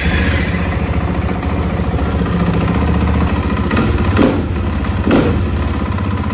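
KTM EXC supermoto's single-cylinder four-stroke engine, just electric-started cold and idling with an uneven, lumpy beat. It is blipped briefly twice, about four and five seconds in, to warm it before an oil change.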